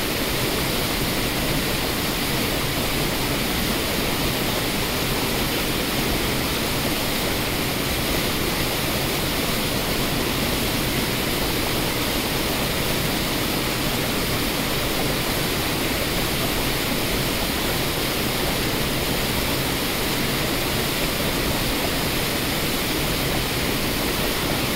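Waterfall: water rushing steadily over rock cascades, one dense, unbroken rush.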